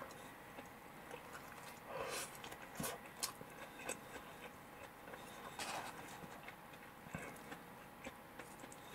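Faint chewing of a mouthful of fried chicken (karaage), with a few short, scattered mouth smacks and clicks.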